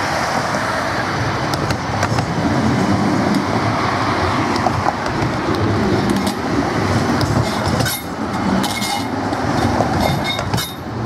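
A 56-metre CAF Urbos low-floor tram passing close by, its wheels rumbling and clicking on the rails.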